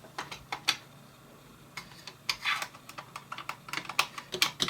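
Irregular small clicks and ticks of a slotted screwdriver working the tiny screws of a Mac mini G4's hard-drive mount, metal tapping on metal. The clicks come more thickly in the second half.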